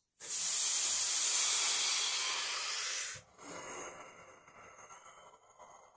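A man's forceful hissing breath through the mouth for about three seconds, cutting off sharply, then quieter, fading breathing, as he braces through a hip isometric hold.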